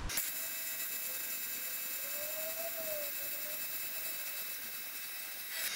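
AC TIG welding arc on an aluminium skeg and shaft, running steadily: an even hiss-buzz with high, steady whistling tones over it.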